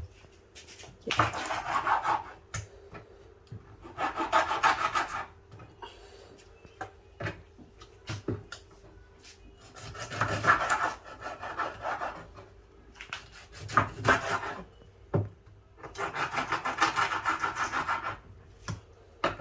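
Rapid rasping scrapes, coming in about five bursts of one to two seconds each, with scattered knocks and taps between them.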